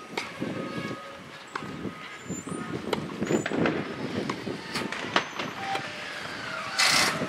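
Tennis rally on a clay court: a racket strikes the ball several times with sharp pops about one to two seconds apart, over a low outdoor rumble, and a short hissing scrape comes near the end.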